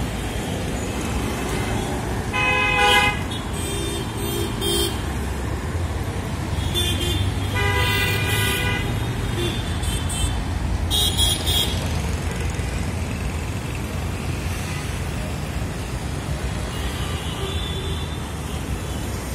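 Steady rumble of city road traffic with vehicle horns honking: a loud short honk about three seconds in, a longer one around eight seconds, and several fainter toots in between.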